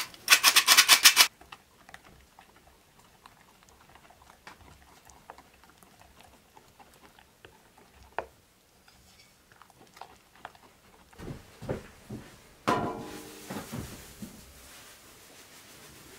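Metal flour sifter rasping in fast rhythmic strokes, about eight a second, for the first second or so, then faint clicks and scrapes of a spoon stirring dough in a glass bowl. Near the end a few short animal calls, the loudest about three-quarters of the way in, and a hiss of feed poured into a wooden trough.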